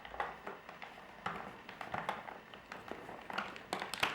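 Scattered light clicks and taps of a plastic Play-Doh hair-extruding toy being handled and worked as plasticine is pressed through it.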